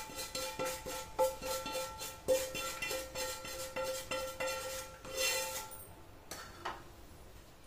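A metal spoon working in a metal pan, with quick repeated scrapes and knocks that make the pan ring, as when stirring dry-roasting rava. The clatter stops about six seconds in.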